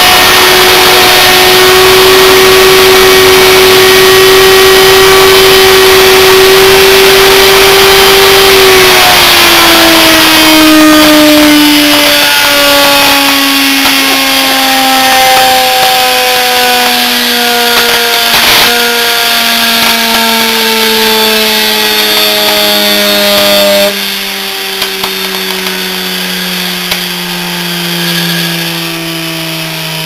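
Washing machine universal motor, run off a microwave oven transformer, whining at a steady high pitch with heavy brush arcing and sparking. About nine seconds in its pitch starts falling steadily as it slows, and it drops in loudness a few seconds before the end. The brushes glow red-hot, and the owner thinks the brush springs have burned out.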